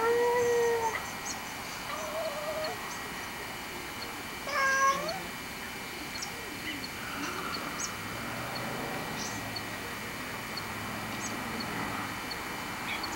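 Domestic cat meowing: a loud meow at the start, a fainter one about two seconds later, and another loud one about four and a half seconds in.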